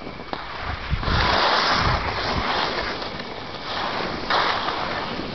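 Wind gusting across the microphone, a rushing noise that swells twice, with low buffeting rumbles in the first gust.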